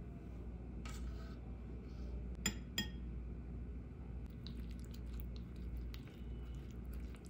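Metal spoon clinking twice against a ceramic bowl, a quarter second apart, while yogurt is spooned onto sliced cucumber, followed by a few light taps and scrapes.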